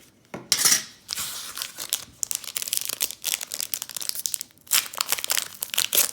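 Foil wrapper of a Pokémon trading-card booster pack being torn open and crinkled in the hands, with a loud rip about half a second in and steady crackling rustle after it.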